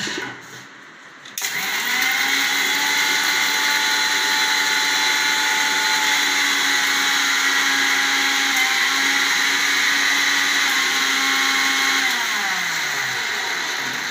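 Electric mixer grinder dry-grinding roasted gram, sugar, cashews and cardamom into powder. The motor starts about a second and a half in and runs steadily at full speed. Near the end it is switched off and winds down, its whine falling in pitch.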